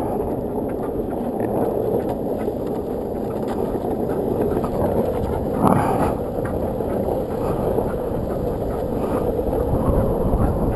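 Longboard wheels rolling on asphalt: a steady rumble, with wind on the microphone and a short scuff about six seconds in.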